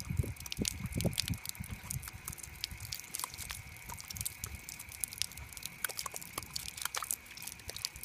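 Yellow Labrador retriever snapping and chomping at a stream of water from a hose, with water pattering and dripping as it bites. The heavier wet chomps fall in the first second and a half; after that it is mostly quick splashes and drips.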